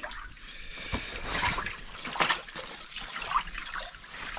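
Water splashing and trickling in an ice-fishing hole as a burbot is hauled up on the line, with a few sharp knocks.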